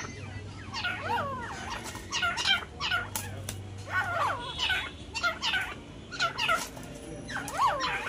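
Grey francolins calling: short bursts of quick, sweeping calls repeated about once a second.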